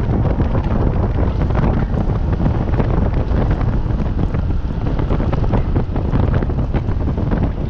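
Heavy wind buffeting on the microphone: a loud, steady low rumble with crackling gusts.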